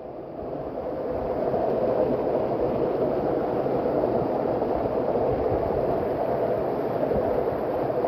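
Small waterfall rushing and splashing down a narrow rock channel, heard close up. It swells over the first second, then holds as a steady rush.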